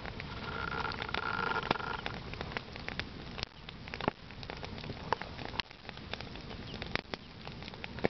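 A heap of dry grass burning in the open: irregular sharp crackles and pops over a steady hiss of flame.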